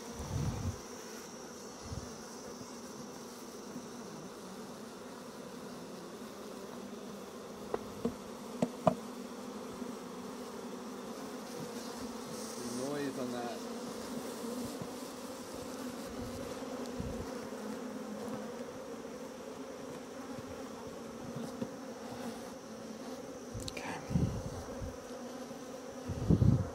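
Honey bees buzzing in a steady hum around an open hive box crowded with bees. The pitch wavers briefly about thirteen seconds in, and there are a couple of sharp knocks around eight to nine seconds in.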